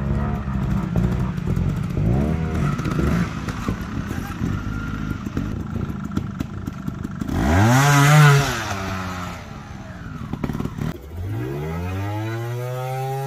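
TRS trials motorcycle's two-stroke engine revving in short rises and falls as the bike climbs over rocks, with scattered knocks. The loudest rev comes about eight seconds in, and near the end the revs rise and hold steady.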